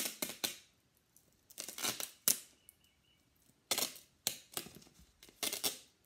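Duct tape being pulled off the roll in short ripping pulls as it is wrapped around a cardboard can: about five bursts, each under a second, with quiet pauses between.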